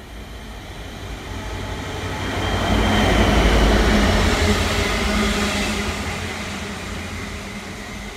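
GBRf Class 69 diesel locomotive 69001, a rebuilt Class 56 fitted with an EMD 710 engine, passing with a Class 66 in tow. Its engine drone and rumble on the rails rise to a peak about three to five seconds in, then fade as it moves away. The engine sounds much like a Class 66's.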